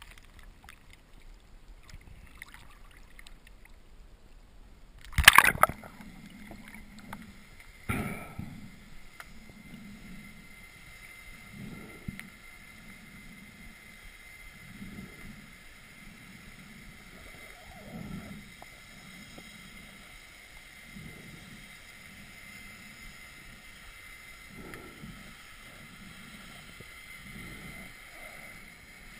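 Muffled underwater sound through a camera's waterproof housing during a breath-hold dive. There are two sharp knocks, about five and eight seconds in, then soft low pulses about every second and a half over a faint steady hiss.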